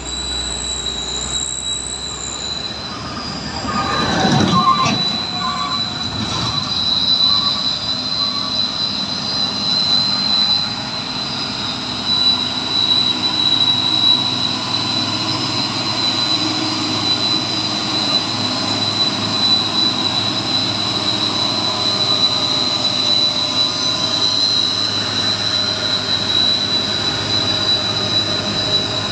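Heavy cargo trucks' diesel engines running as they pass on a hill road, louder as one goes by close about four seconds in, over a steady high-pitched drone throughout.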